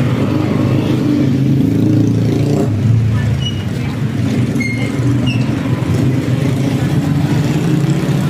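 Motorcycle engine idling steadily, a loud low hum, with a few faint high chirps in the middle.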